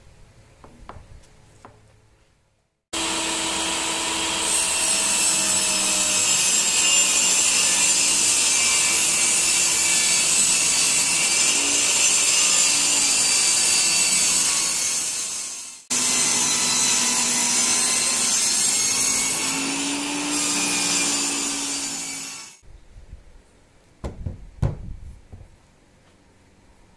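Makita MLT100 table saw ripping a large sheet of plywood, a steady motor whine under the noise of the blade in the wood. It starts abruptly about three seconds in, breaks off for a moment around sixteen seconds, and runs down at about twenty-two seconds. A couple of sharp knocks follow near the end.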